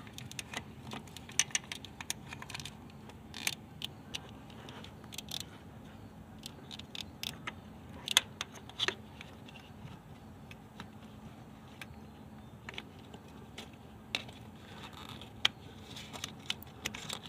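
Irregular small clicks, taps and scrapes of a crankshaft position sensor and its wiring connector being handled and worked toward its hole in the top of the transmission bell housing. The sharpest click comes a little past the middle.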